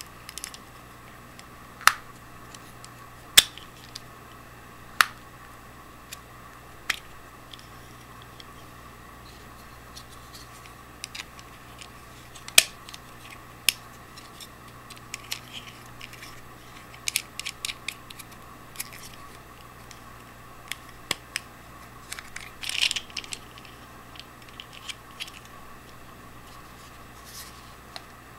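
Plastic parts of a suction-cup camera mount clicking and knocking as they are handled and fitted together, with scattered sharp clicks, a few quick runs of clicks and a short scraping rustle late on. A faint steady hum sits underneath.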